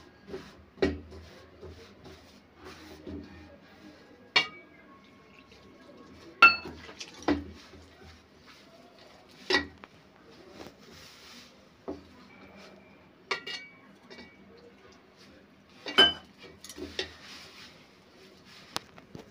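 Metal mixing bowl clinking and ringing as dough is kneaded by hand in it: about eight sharp knocks at irregular intervals, each with a brief metallic ring, over soft rubbing and squishing of flour and dough.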